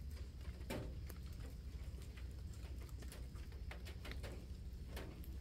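Irregular faint ticks and taps of rain drops falling through wet foliage, a few a second, over a low steady rumble.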